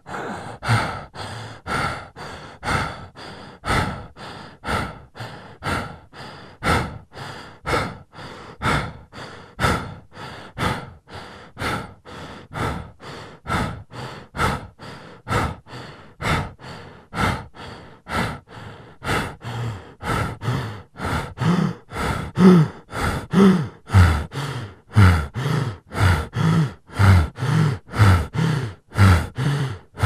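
A person breathing heavily in and out in a steady rhythm, about one breath a second at first, getting faster and louder. In the second half the voice sounds on each breath, like panting sighs.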